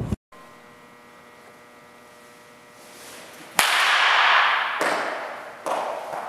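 A baseball bat strikes a ball in an indoor batting cage about three and a half seconds in: a sharp crack, then a loud rushing sound that fades over a second or so as the ball goes into the netting. Two softer knocks follow, over a low steady hum. Just at the start, a burst of wind noise cuts off.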